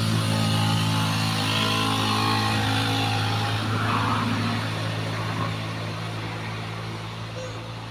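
A motor vehicle engine running with a steady low hum, fading slowly over the second half.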